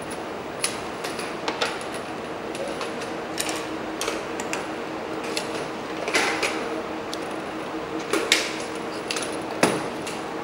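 Hard plastic inspection-camera housings and parts being handled and set down on a workbench: scattered clicks and knocks, a few sharper ones near the end, over a steady room hum.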